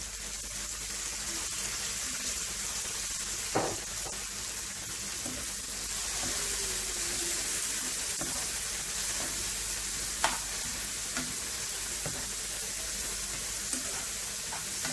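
Diced tomatoes and onions sizzling steadily in a frying pan as a metal spoon stirs them, with two sharp knocks of the spoon on the pan, about three and a half seconds in and again about ten seconds in.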